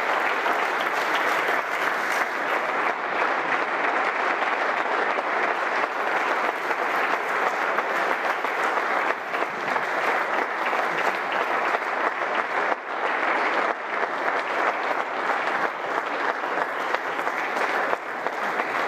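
A standing audience applauding in a hall: sustained, steady clapping from many hands.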